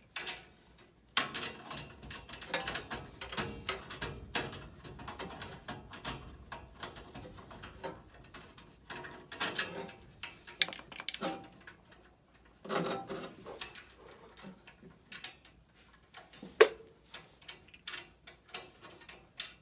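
Irregular metallic clicks, knocks and scraping of hands and a tool working a part loose inside a furnace cabinet, here the furnace igniter being removed for cleaning.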